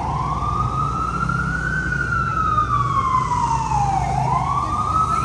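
Emergency vehicle siren in a slow wail, its pitch climbing for about two seconds and then sliding back down, dipping to its lowest about four seconds in before rising again, over a steady low traffic rumble.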